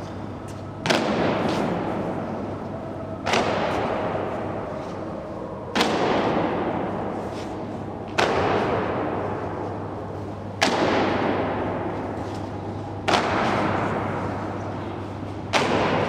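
Honour guard's boots stamping in slow ceremonial march step on a stone floor, one sharp stamp about every two and a half seconds, seven in all, each echoing long through the round stone hall. A steady low hum runs underneath.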